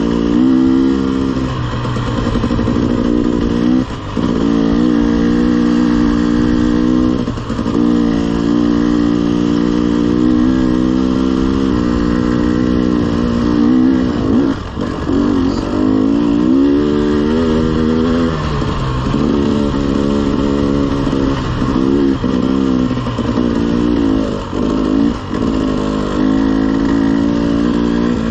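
Dirt bike engine running along a trail at a steady pace, with the throttle closing briefly about 4 s and 7 s in, the revs climbing again around halfway, and a string of quick throttle drops and pick-ups near the end.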